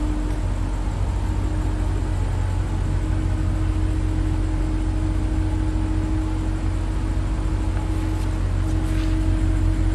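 Steady low idle hum of a BMW 750i's twin-turbocharged 4.4-litre V8, with a faint steady tone above it.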